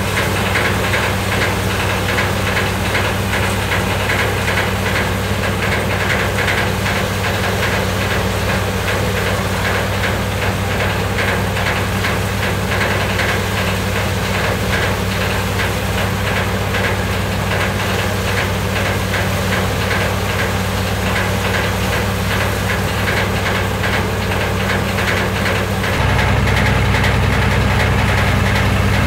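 S Kumar multicrop thresher, model 777, running steadily under its engine drive: a constant low hum with a fast, even rattle. About 26 s in the sound abruptly gets louder and deeper.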